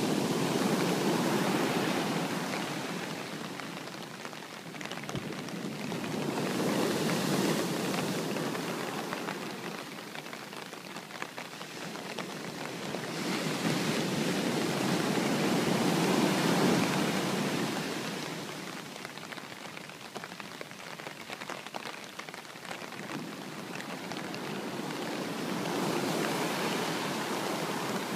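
Sea waves washing onto the shore in slow surges that swell and fall back every six to ten seconds, under a steady hiss of falling rain.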